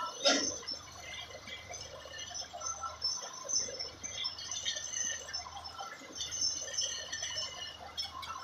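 Water trickling and dripping in many small splashes over a low steady hum, with one sharp knock about a quarter second in.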